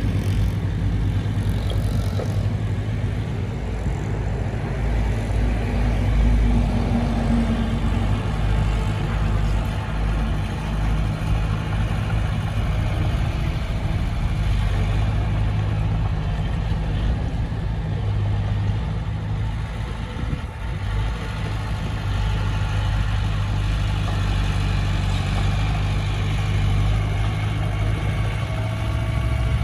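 Heavy diesel engine of a bulldozer at work, running steadily with small rises and falls in level.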